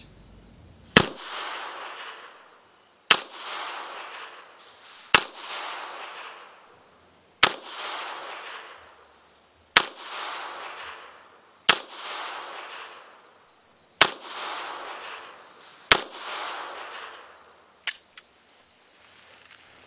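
Eight shots from an 8mm Rast & Gasser M1898 revolver, about two seconds apart, each followed by a rolling echo, then two faint clicks near the end. Crickets trill steadily underneath.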